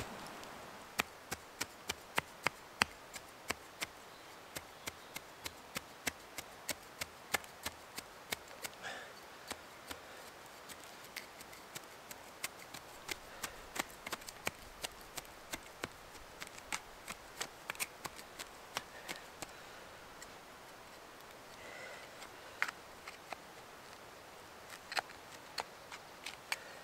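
Sharp, irregular snapping clicks, two or three a second, as grass stems are torn and pulled up from the turf by hand.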